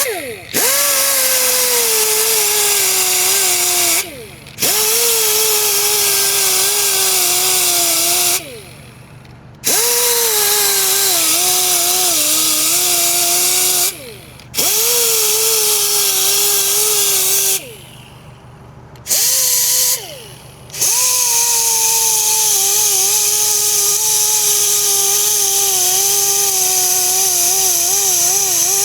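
Grinder with a red surface-conditioning disc grinding curb rash off an alloy wheel rim. A high whine spins up, then drops in pitch and wavers as the disc is pressed into the metal. It runs in six stretches with short pauses between them.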